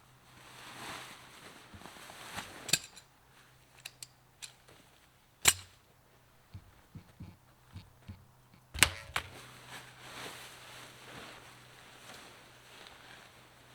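Camping gear being handled: rustling with several sharp snaps and knocks, the loudest about five and a half and nine seconds in.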